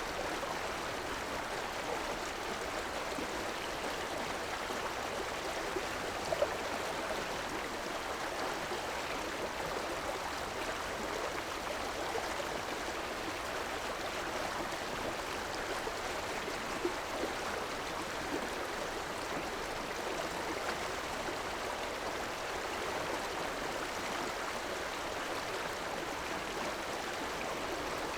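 A river flowing steadily, a constant rushing and babbling of water.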